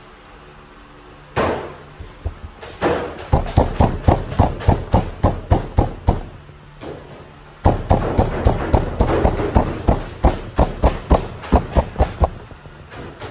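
A fist pounding bread dough flat against a work table: rapid, even thuds about four a second, in two runs with a short pause between them.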